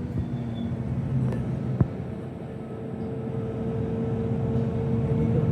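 Vehicle running steadily: a low engine hum with a steady higher tone over it, and two short clicks about a second and a half and two seconds in.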